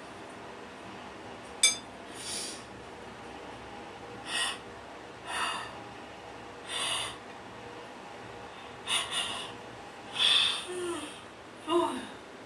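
A person breathing in short, sharp, noisy breaths, about seven of them a second or two apart, after a single sharp click. The last two breaths carry a brief voiced tone.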